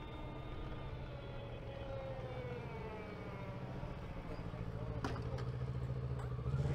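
Energica Eva Ribelle RS electric motorcycle riding, its motor whine gliding in pitch and mostly falling slowly as the bike eases off, over a steady low road and wind rumble. There is a single click about five seconds in.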